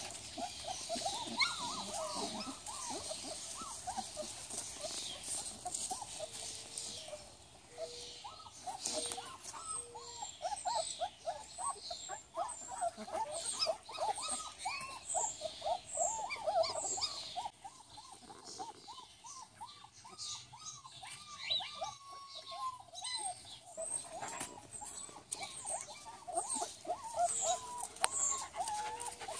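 German shepherd puppies squeaking and whining in a rapid, near-continuous string of short high-pitched cries while they play.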